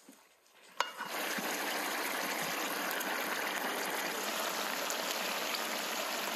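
A sharp click about a second in, then goose stew cooking in a metal pot: a steady, even bubbling hiss.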